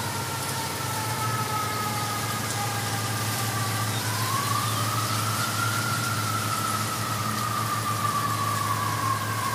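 A siren wailing, its pitch rising about four seconds in and then slowly falling, over a steady low hum.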